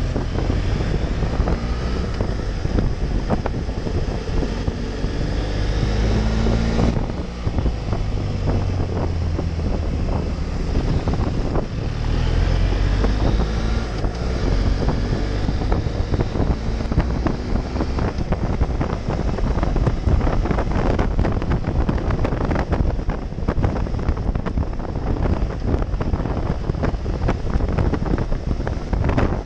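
Wind buffeting the microphone of a camera on a moving motorcycle, over the motorcycle's engine running, its note rising and falling as the rider works through the bends.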